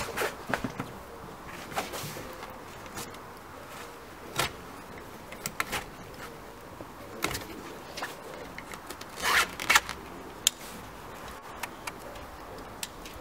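Scattered clicks and short rustling scrapes of an old convertible hood's material being cut and pulled free of its metal frame, busiest a little past the middle.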